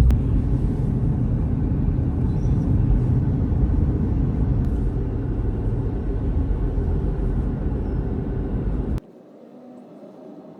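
Low, steady road and engine rumble heard inside a moving car. It cuts off abruptly about nine seconds in, leaving only a faint background.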